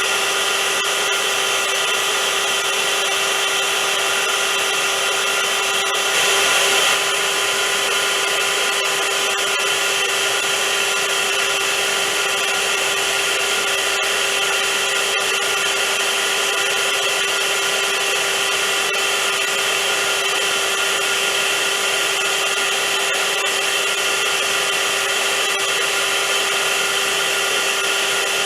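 Vacuum cleaner motor running steadily: a wide airy hiss with a constant whine, briefly a little louder about six seconds in.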